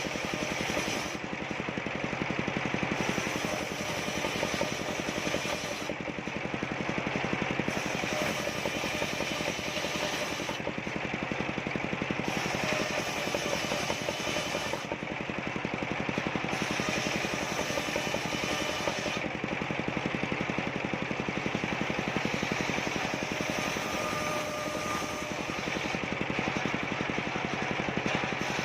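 Engine-driven circular saw running without a break while ripping waru wood into thin battens. Its sound changes every four or five seconds as each strip is fed through the blade and cleared.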